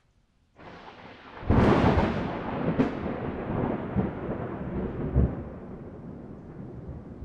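Thunderstorm: rain hiss comes in under a second in, then a loud, sudden thunderclap about a second and a half in and a second sharp crack soon after, followed by thunder rumbling and slowly fading over the steady rain.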